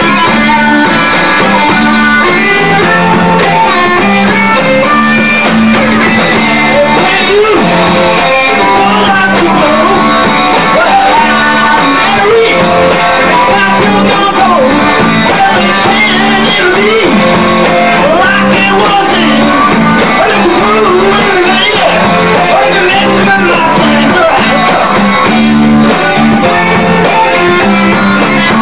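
Rock band playing live: guitar and drums, with a lead part of bent, wavering notes through the middle.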